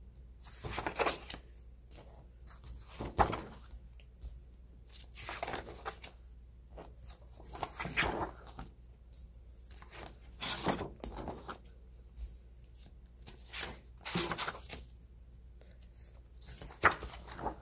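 Paper pages of a ring-bound planner being turned by hand, one after another: a short rustling swish every second or two, a few of them sharper and louder than the rest.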